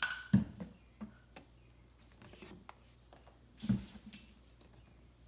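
An umbrella cockatoo playing with a paint brush and a small dumbbell on a concrete floor: a sharp rush and a knock right at the start, a few light clicks and scrapes, then about three and a half seconds in a brief whoosh of wing flapping with a thud.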